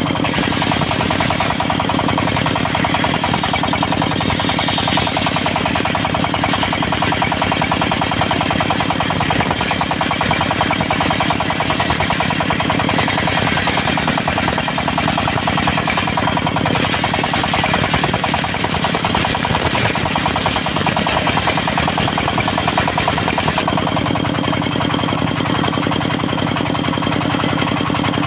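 Diesel-driven circular sawmill sawing teak: a rapid, steady knocking rhythm from the engine under the saw blade cutting through the wood. About three-quarters of the way through, the cutting noise drops away and the diesel runs on alone.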